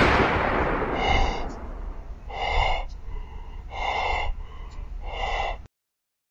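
Heavy breathing sound effect for the masked killer Michael Myers: four slow breaths, about one and a half seconds apart. It follows the fading tail of a loud crash at the start and cuts off suddenly near the end.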